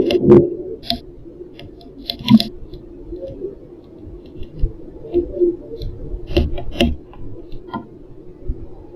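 Irregular sharp taps and clicks over a faint steady low hum. A few come close together about two seconds in, and the loudest pair lands around six and a half seconds.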